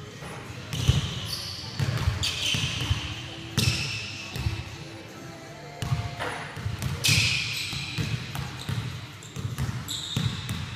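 Basketballs bouncing on a hardwood gym floor, thudding every second or so, with several sharp, high squeaks typical of sneakers on the wood, all echoing in the large hall.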